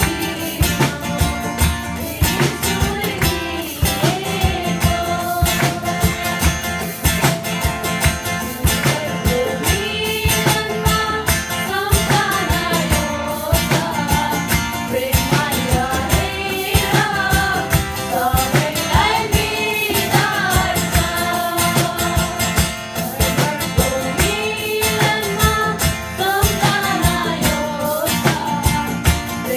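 Song with singing over guitar and percussion, with a steady beat.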